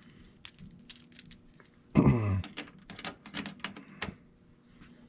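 A man clears his throat once, about two seconds in, amid scattered small clicks and taps of small parts being handled.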